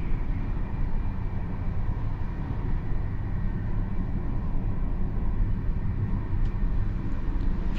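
Steady running noise of a moving Intercity passenger carriage, heard from inside a compartment: an even low rumble with a faint steady whine over it.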